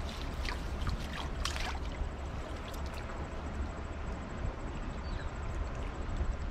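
Shallow river water splashing and dripping as a cast net is worked by hand. Most of the splashes come in the first two seconds, with a few more about three seconds in, over a steady low rumble.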